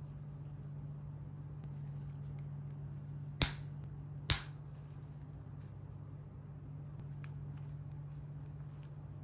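Two sharp plastic clicks just under a second apart as small LEGO pieces are snapped together by hand, with a few faint ticks of parts being handled, over a steady low hum.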